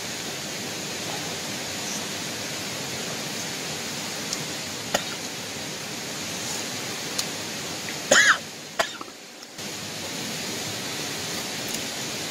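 A man coughs loudly about eight seconds in, with a second, shorter cough just after, over a steady hiss. A few faint clicks come from him picking at the fish.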